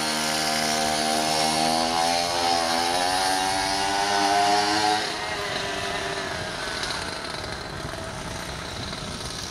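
Small gas engine of a stand-up motor scooter running under throttle, its pitch rising over the first few seconds as it speeds up. From about halfway it drops in level and goes on more faintly as the scooter rides away.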